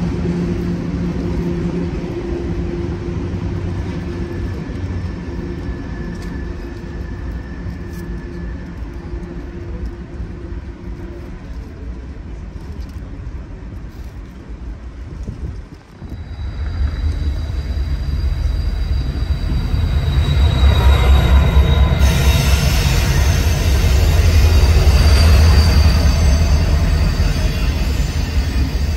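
A freight train's cars rumble steadily as they roll past. About halfway in, the sound gives way to diesel locomotives approaching on a curve, their deep engine drone growing loud, with high wheel squeal from the curve joining near the end.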